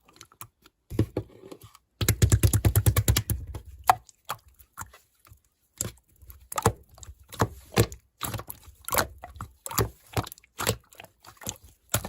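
Slime being squeezed and pressed, giving a run of crisp clicking pops, packed close together between about two and four seconds in and then coming one by one.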